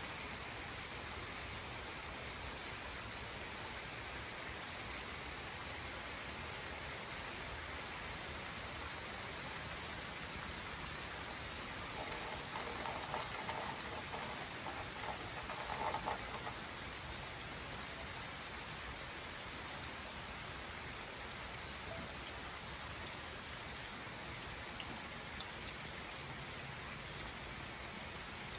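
Steady rain falling, an even hiss with scattered drops. From about twelve to sixteen seconds in, a somewhat louder stretch of rushing sound rises over the rain, then fades back.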